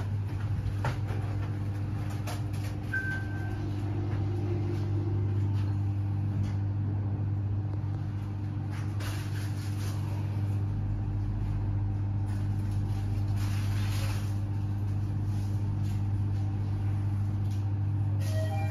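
Refurbished 1994 Mitsubishi elevator car travelling between floors, heard from inside the car: a steady low hum with a few constant tones. A short beep sounds about three seconds in.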